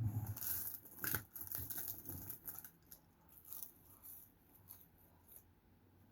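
Close-miked eating of fast food: crisp crunching and crackling bites and chewing, loudest in the first two seconds, then thinning to quieter chewing.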